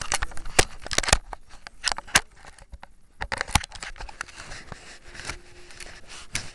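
Close handling noise: irregular sharp clicks and knocks with some rubbing as hands work a plastic click pen right by the microphone. The knocks are loudest and densest in the first few seconds and thin out to light ticks after about four seconds.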